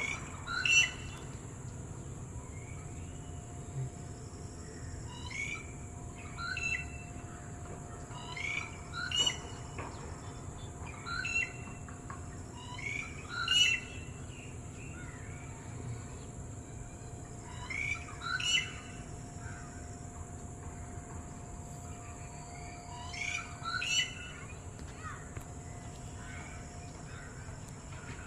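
Red-whiskered bulbul calling: short phrases repeated every two to five seconds, some much louder than others, as if answering another bird.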